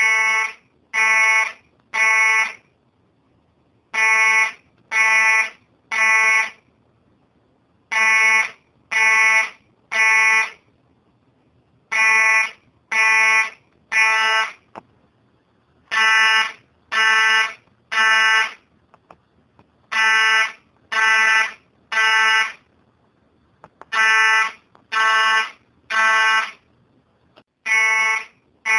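Fire alarm sounding in the temporal-three evacuation pattern: three loud, shrill beeps about a second apart, then a short pause, repeating every four seconds.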